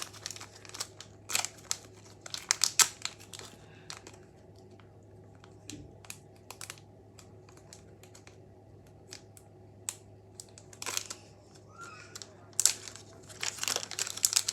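Plastic packaging crinkling and tearing as a small toy is unwrapped, in two bouts of dense crackling with scattered clicks between them.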